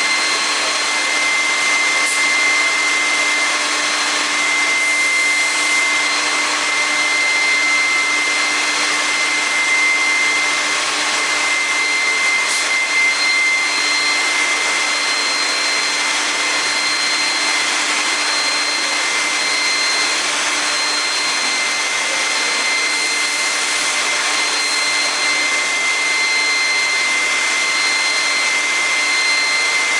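KRAFT TCF 70 CNC woodworking machining centre running: a steady high whine over an even rushing noise like dust extraction or a vacuum pump.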